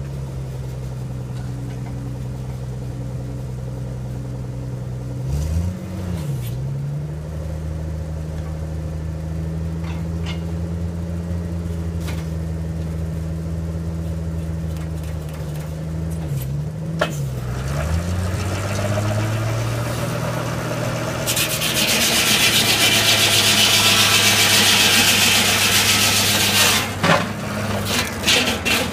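Engine powering a homemade firewood processor's hydraulics runs steadily, dipping in pitch twice as it takes load, with occasional sharp knocks of wood. From about 21 to 27 seconds in, a loud hissing rasp rises over the engine.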